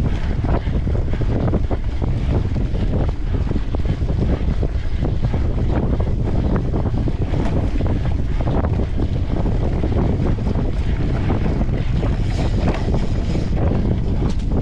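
Wind buffeting the microphone of a camera riding on a mountain bike at speed, a steady loud rumble. Frequent short rattles and knocks come from the bike over rough, sandy forest ground.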